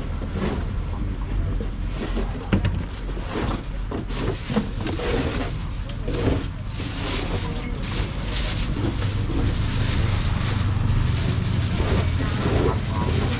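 Steady low rumble, heavier in the second half, under faint background voices, with scattered knocks and plastic rustling as seafood is bagged.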